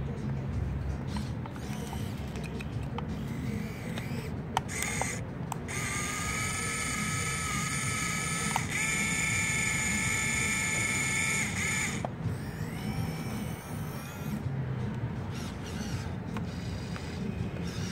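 Small electric gear motors of a radio-controlled model excavator whining as it drives its tracks over rubble. The whine comes in about six seconds in, holds a steady high pitch until about twelve seconds, then wavers as the motors change speed, with a few sharp clicks of grit and gears.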